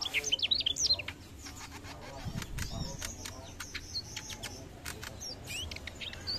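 Mugimaki flycatcher singing a fast twittering run of high, sliding notes in the first second, then only scattered short chirps and clicks, with a few more notes near the end. A brief soft low rustle comes about two and a half seconds in.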